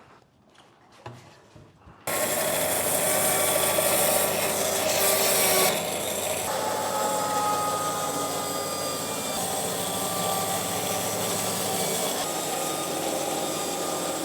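Power saw cutting through a thick walnut board, starting abruptly about two seconds in and running steadily, loudest for the first few seconds of the cut.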